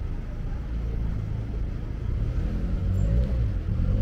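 Street traffic: a car engine's low rumble, growing louder and clearer toward the end.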